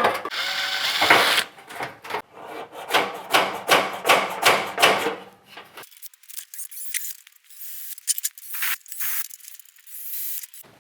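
Hand-tool scraping strokes against an old painted metal tackle box, repeated about two a second. After about six seconds they give way to a thinner, hissy stretch of scattered scrapes.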